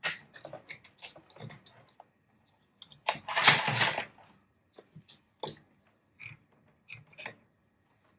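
Handling noise from unboxing a plastic toy machine gun: irregular clicks and knocks of plastic parts with short rustles, and a longer, louder rustle about three seconds in.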